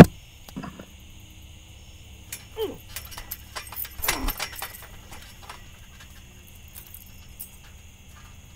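Trampoline springs and mat jingling and creaking under a man's weight as he bounces and wrestles, with scattered knocks and a heavier burst of jangling and thumping about four seconds in as a large stuffed bear is slammed down.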